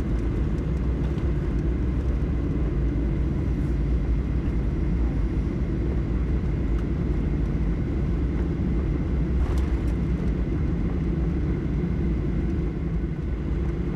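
Steady low rumble of engine and airflow noise inside a jet airliner's cabin on the ground just after landing, with a faint steady high whine above it.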